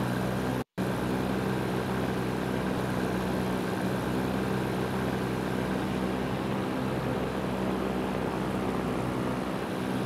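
Paramotor engine and propeller running at a steady cruise in flight, an even drone with wind noise. The sound drops out for a split second just under a second in.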